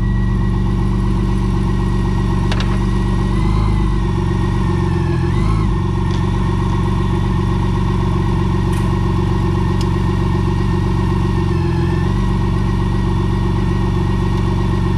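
Campagna T-Rex's BMW six-cylinder engine idling steadily, its note shifting slightly a few times, with a single sharp click about two and a half seconds in.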